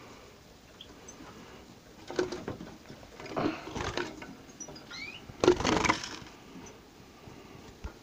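Finch in a wire cage, likely the red siskin, moving about: several short bursts of rustling and fluttering, the loudest a little past halfway. A short rising chirp comes just before that burst, and a few faint high chirps sound near the start.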